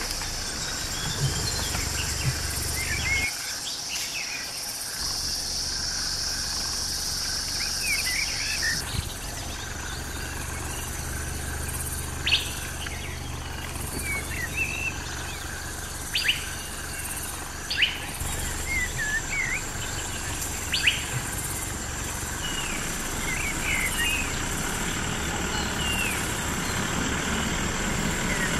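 Forest ambience: birds chirping and calling throughout over a steady high insect buzz, with a low hum underneath. A few sharp clicks stand out in the second half.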